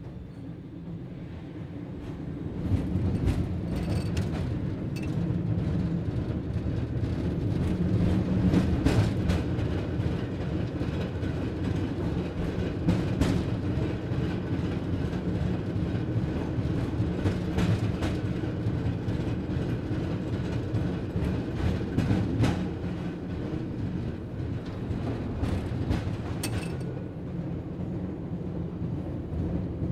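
Streetcar running along its rails: a steady low rumble with scattered clacks from the wheels. It grows louder about two seconds in.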